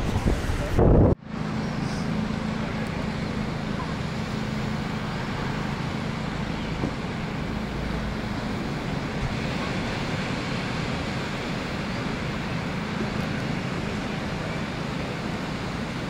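Steady, even rush of breaking ocean surf, with wind on the microphone. A louder rush in the first second cuts off abruptly.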